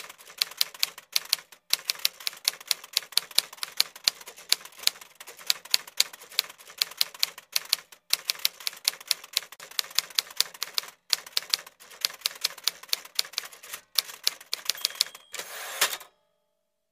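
Typewriter keys clacking in quick runs of sharp strikes with short pauses between lines, as a typing sound effect. Near the end a brief ringing tone and a short rattling sweep, like the carriage bell and return, before it cuts off.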